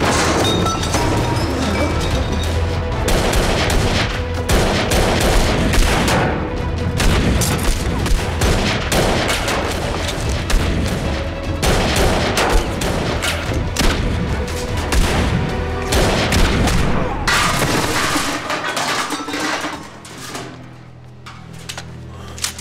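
Gunfire from handguns and a shotgun, many shots in quick succession, over dramatic music. The shooting dies away about eighteen seconds in, leaving low music.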